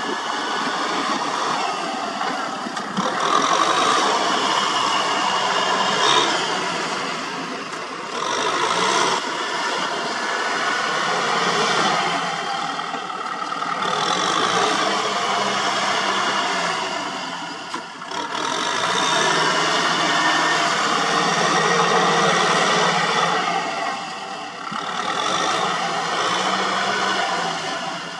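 Kubota M6040 SU tractor's diesel engine working under load as it pulls a tiller through deep mud. It runs continuously, swelling and easing off several times.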